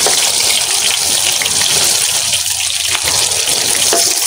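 Banana fritters deep-frying in a wok of hot oil: a steady, loud sizzle with small pops and crackles through it.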